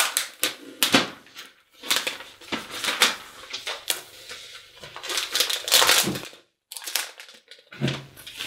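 Clear plastic protective wrap on a new laptop crinkling and rustling in a series of irregular bursts as it is peeled off and pulled away.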